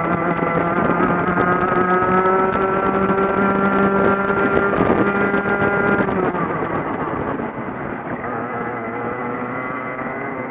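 Two-stroke racing kart engine heard onboard at high revs, its pitch climbing slowly for about six seconds, then dropping off as the throttle is lifted, and rising again from lower revs near the end.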